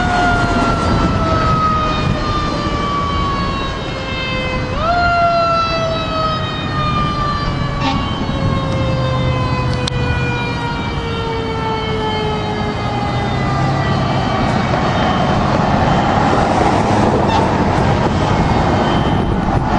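Fire truck siren sounding twice, each time rising sharply in pitch and then winding slowly down over several seconds, the second fall fading out about two thirds of the way through. Vehicle engines and traffic rumble steadily under it.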